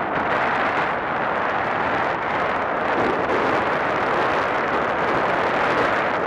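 Steady, even rushing noise of strong wind buffeting the microphone.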